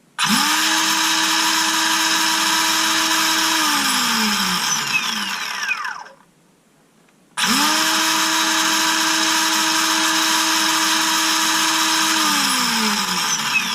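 Ryobi 18V brushless cordless chainsaw run twice off load: each time it spins up at once, holds a steady high-pitched whine for about three and a half seconds, then coasts down slowly with falling pitch, since its chain brake has been removed. It runs steadily at full speed, the repair seemingly holding.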